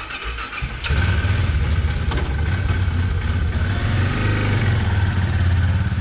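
Motorcycle engine starting about a second in and then idling steadily with a low, even hum.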